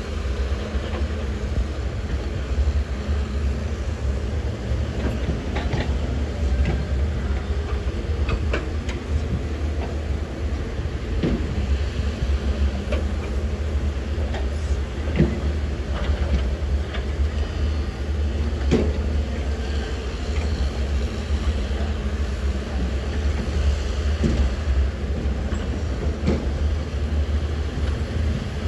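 Heavy diesel earthmoving machinery running with a steady low rumble, with scattered metallic clanks and knocks.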